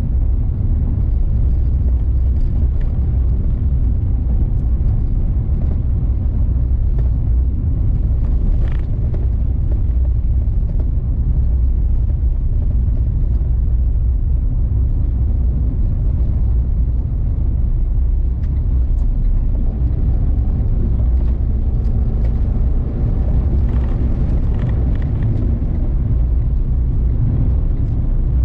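Car driving at highway speed, heard from inside the cabin: a loud, steady low rumble of road, engine and wind noise.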